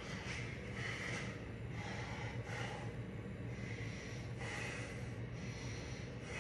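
A man's heavy breathing through the nose, a breath roughly every second, as he holds flexed poses. A steady low hum runs underneath.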